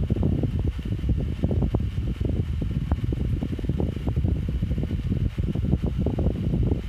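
Small wire-cage desk fan with LED message-display blades running steadily, a low uneven rumble with a faint steady whine above it.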